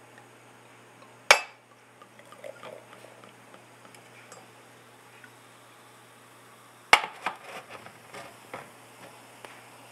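Sparkling wine poured from a glass bottle into a champagne flute. There is a sharp clink of glass about a second in, then faint pouring and fizzing. About seven seconds in comes a louder knock as the bottle is set down on the hard counter, followed by a short run of small clicks.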